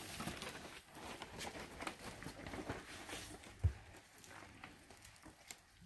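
Faint handling and movement noises, light rustles and taps among cardboard boxes, with one soft thump a little past the middle.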